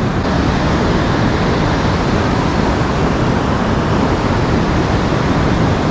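Steady rush of ocean surf breaking on a beach, mixed with wind.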